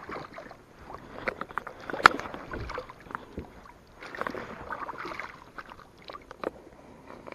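Lake water splashing and gurgling around a collapsible water pouch as it is dipped in to fill, with scattered small knocks and clicks against the kayak.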